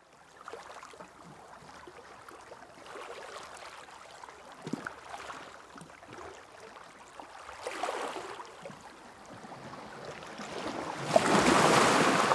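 Sea water sloshing and waves washing in, in slow swells that grow to a louder rush near the end.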